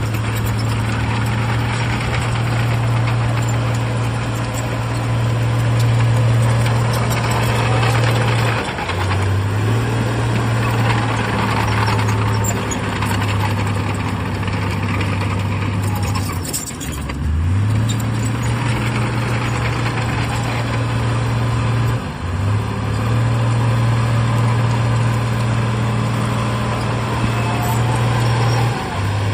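Heavy diesel engine of earthmoving machinery running steadily under work, a loud low drone whose pitch drops briefly and recovers three times.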